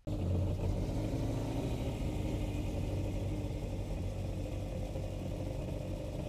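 2015 Yamaha WaveRunner VXR's four-stroke engine idling steadily, being run to warm its oil for an oil change.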